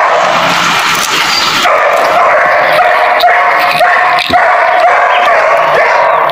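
Dogs barking, with a long, slightly wavering high note held from about two seconds in to the end.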